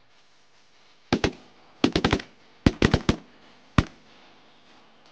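Volley of shotgun shots from several duck hunters firing at once at a passing flock: about ten sharp reports in quick, overlapping clusters over less than three seconds, starting about a second in, with one last shot near the end.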